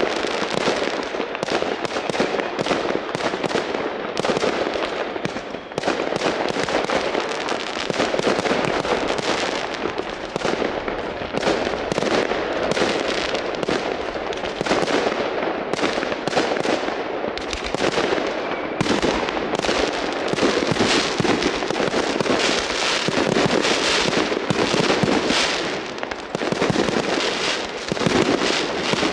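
New Year's Eve fireworks and firecrackers going off all around in a continuous barrage: dense, overlapping bangs and crackling with no pause.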